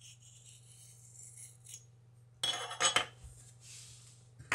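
Eleaf iStick box mod being taken apart by hand. There is a light scraping as the circuit board and battery slide out of the metal case, then a loud clatter of clinks and knocks about two and a half seconds in, and a single click near the end.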